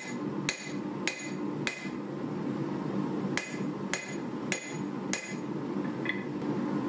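Hand hammer forging a 1095 steel knife blade on an anvil: two runs of four blows, about two a second, each with a short metallic ring. Near the end the hammer is set down on the anvil with a light clink.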